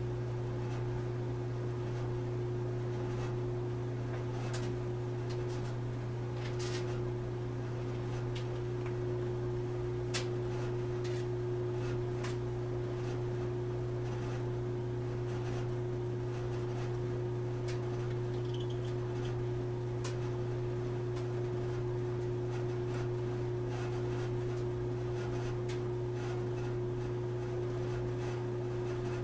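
Old clothes dryer running with a steady low buzz and a fainter steady tone above it, with light ticks now and then.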